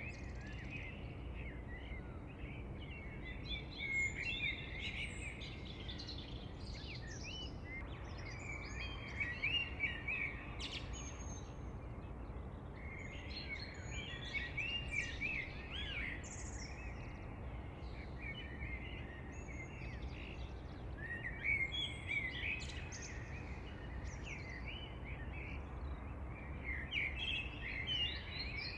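Several birds chirping and singing in overlapping bursts of quick, high trills and whistles, over a steady low background noise.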